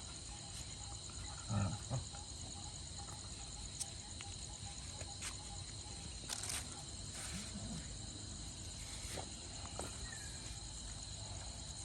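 Insects chirring steadily in a high, pulsing drone, with a few faint knocks and taps.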